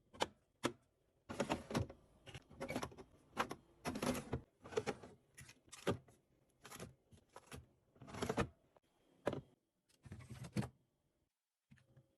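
Hands stocking a fridge: a few sharp clicks, then a long run of irregular bursts of packaging rustle and knocks as food packs and storage containers are handled and set in place.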